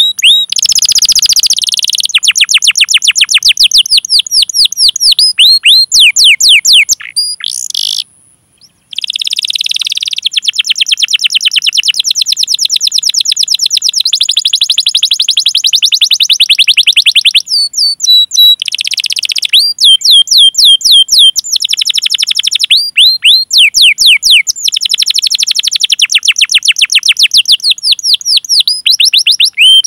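Domestic canary singing long rolls of rapid, repeated down-slurred 'cuit cuit' call notes, in runs broken by short pauses, with a brief silence about 8 seconds in.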